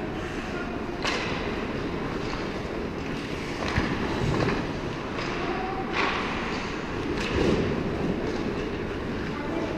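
Ice hockey skates scraping and carving on the ice around the net, with several sharp scrapes and clacks of sticks and puck over a steady rumbling noise.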